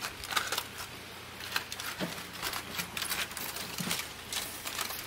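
Aluminium foil crinkling in short, irregular crackles as it is handled and peeled back from a baking tray.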